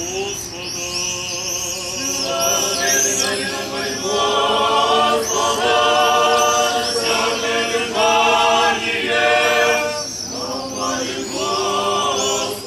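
A church choir singing Orthodox liturgical chant in slow, held chords, with a brief break about ten seconds in.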